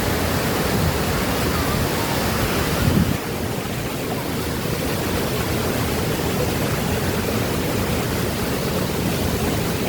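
Waterfall rushing, a steady loud roar of falling water. About three seconds in there is a brief bump, after which the sound is a little duller.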